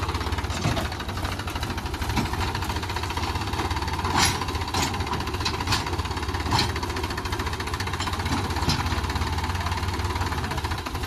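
Diesel engine of a Mahindra Yuvo Tech+ tractor running steadily with a loaded trolley hitched, with a few short sharp clanks between about four and nine seconds in.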